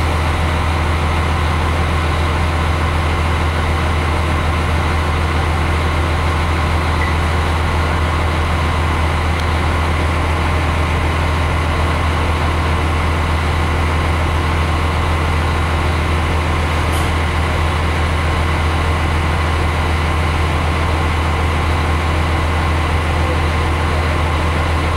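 Diesel engine of an RA2 railcar running with a steady low hum, heard from inside the passenger cabin as the train moves slowly along a station platform.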